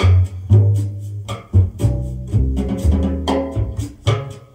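Jazz vinyl record playing through hi-fi loudspeakers: a walking bass line with drums and cymbal hits keeping the beat.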